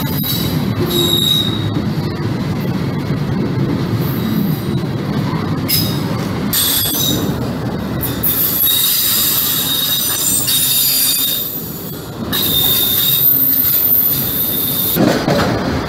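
Freight train of autorack and open-top cars rolling past at close range, its steel wheels squealing in high, thin whines over the rumble of the cars. The squeal is loudest in the second half.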